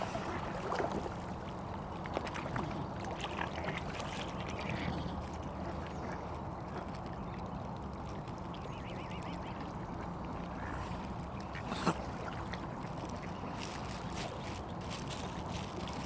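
Mallard ducks quacking now and then over a steady low rumble, with one sharp click about twelve seconds in.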